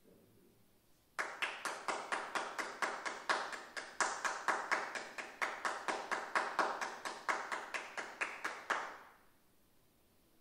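Sparse applause from a small audience: separate, evenly paced hand claps, about four or five a second. It starts sharply about a second in and dies away near nine seconds.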